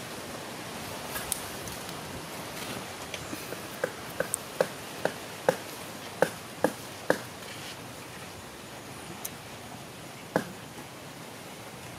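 Shrimp soup simmering in a clay pot: a steady hiss with a run of short pops from bursting bubbles, about nine in three seconds in the middle, then one more near the end.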